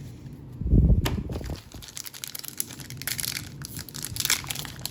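A trading card booster pack wrapper crinkling and tearing as it is opened by hand, growing busier over the last couple of seconds. A dull thump about a second in.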